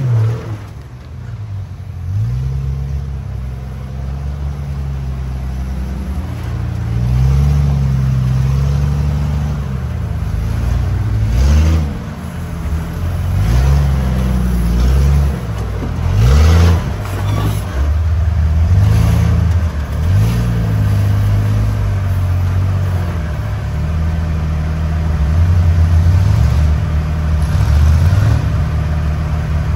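Off-road vehicle engine revving up and dropping back again and again, a few seconds between each rise.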